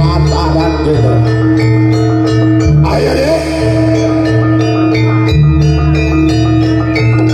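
Live jaranan music from a gamelan-style ensemble: struck metal percussion and drums in a steady rhythm over deep held bass notes that change every couple of seconds, with a melody line gliding up in pitch about three seconds in.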